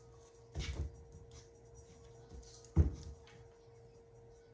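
Light handling noises in a small room: a brief rustle just over half a second in and a single sharp tap near the middle, over a faint steady hum.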